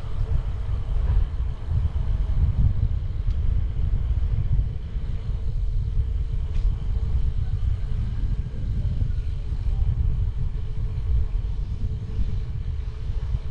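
Wind rumbling over the camera microphone as a bicycle descends a mountain road at speed, with a faint steady hum over it.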